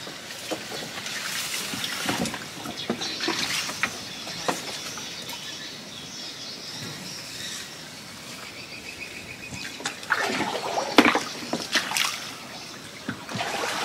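Water splashing and dripping as a wire-mesh fish trap is hauled up out of a muddy canal through water hyacinth, with scattered knocks and rustles from the trap and plants; the splashing is loudest about ten seconds in.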